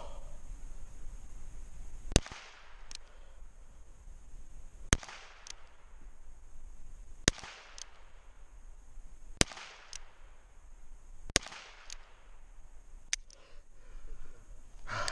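Five single handgun shots, fired slowly about two to two and a half seconds apart, each followed by a short echo off the range.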